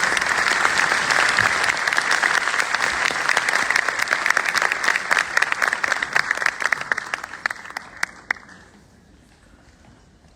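Audience applauding, a dense patter of many hands clapping that dies away about seven to eight seconds in, ending with a few last scattered claps.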